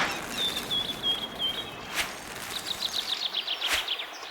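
Birds chirping over a steady hiss: a run of about six repeated high notes, then a quicker series of about ten notes falling in pitch, with a few sharp clicks between.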